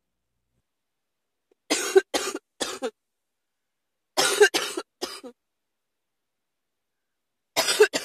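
A person coughing in bouts of three quick, harsh coughs, a pause of a second or more between bouts; the third bout begins near the end.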